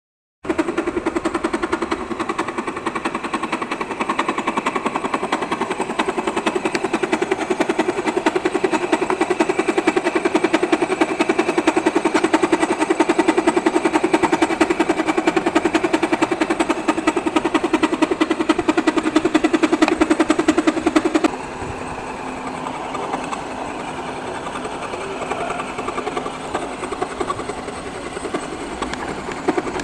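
Milling machine face-milling one side of a workpiece flat with an end mill: a loud, rapid chatter of the interrupted cut. About two-thirds of the way through it drops suddenly to a quieter running sound.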